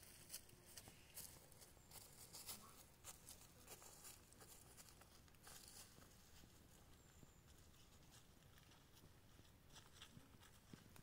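Faint footsteps crunching and rustling in dry fallen leaves on a forest floor, irregular steps.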